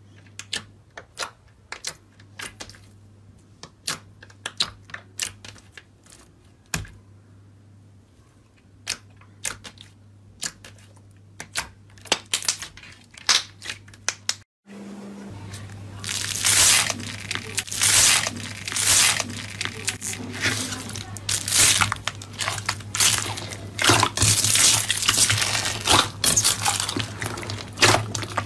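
Slime being pressed and squeezed by hand, giving scattered sharp clicks and pops as trapped air bursts. After a brief cut about halfway through, the crackling and popping turns much denser and louder, over a low steady hum.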